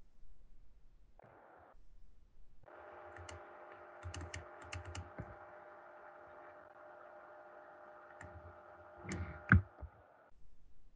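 Clicking at a computer while a calculation is entered: a quick run of light clicks about three to five seconds in, then a few more near the end, one of them louder. A faint steady hum runs under them and stops shortly before the end.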